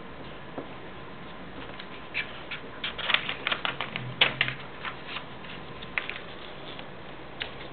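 Light clicks and taps of a pencil and fingers on a paper worksheet over a plastic desktop. They come scattered, with a quick run of them near the middle.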